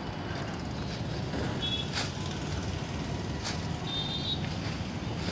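Wind buffeting the microphone as a steady low rumble, with two short high beeps a couple of seconds apart and a few sharp clicks.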